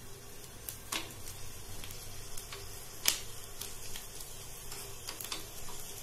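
Herbal oil with turmeric and a betel leaf stem sizzling faintly in a small steel ladle over a gas burner. A metal spoon clicks sharply against the ladle a few times as it stirs.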